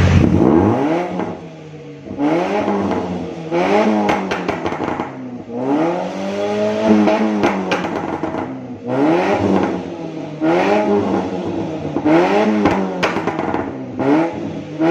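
Nissan Livina's four-cylinder petrol engine revved through a freshly fitted racing exhaust with a 5Zigen muffler, blipped about eight times, each rev rising and falling back. The note is deep.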